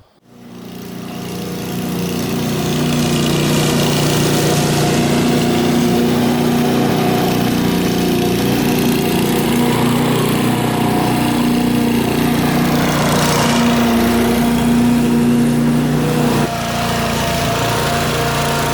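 A motor running steadily at one speed, fading in over the first couple of seconds, with a slight drop in level near the end.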